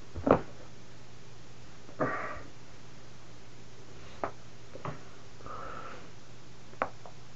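A single sharp crack of the spine's joints popping during a self-adjustment, about a third of a second in. Then there are sniffs and breaths, and a few faint clicks.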